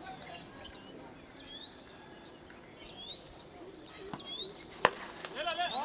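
Steady, high insect trilling with short rising chirps coming and going, and a single sharp crack of a cricket bat striking the ball near the end.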